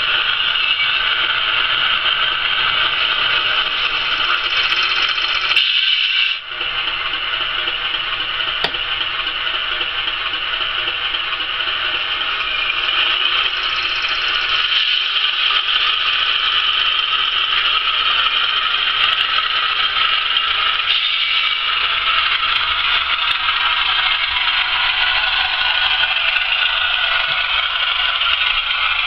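Hornby Class 31 model diesel locomotive running with its sound decoder playing a diesel engine note through a small speaker, heard as a steady thin rattle with little bass. The sound dips briefly about six seconds in.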